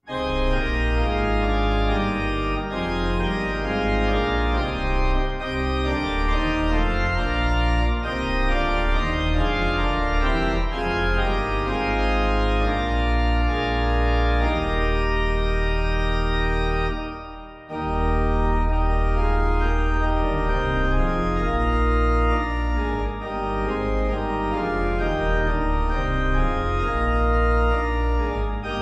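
Organ playing a hymn tune in full chords over a deep pedal bass, with a brief break about two-thirds of the way through.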